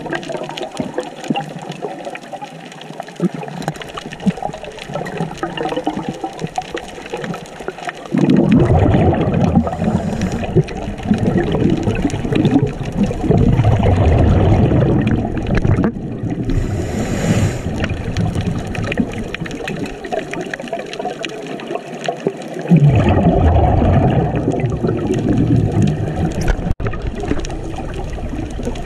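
Underwater sound of a scuba diver breathing through a regulator: long spells of bubbling exhalation starting about eight seconds in and again about twenty-three seconds in, with a short hiss between them, over steady water noise.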